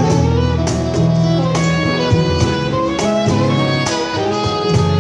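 Live band playing an instrumental passage of a soft pop ballad: a saxophone carries a gliding melody over keyboard, guitar and bass chords, with a steady cajon beat.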